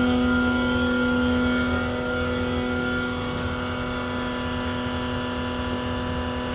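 Vacuum evaporative concentrator running under test: a steady machine hum from its motors and pumps, made up of several constant tones over a low rumble, getting slightly quieter about two seconds in.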